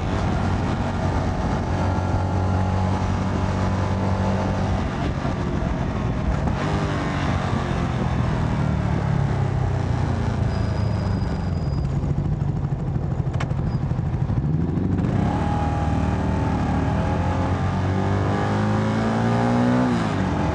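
Single-cylinder engine of a 2022 CFMoto 300NK motorcycle running under way, heard from the rider's position with wind rush. It holds a steady cruise, eases off in the middle, then revs up in rising sweeps with a gear change near the end.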